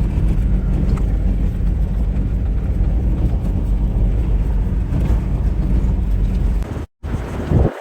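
Vehicle driving on a rough dirt trail: a loud, steady low rumble that breaks off briefly about seven seconds in.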